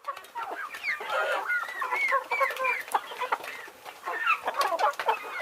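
Chickens clucking, many short calls overlapping.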